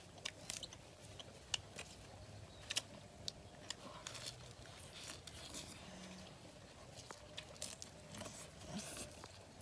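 People eating: chewing, mouth smacks and the crunch of fresh lettuce leaves, heard as scattered small clicks and crackles.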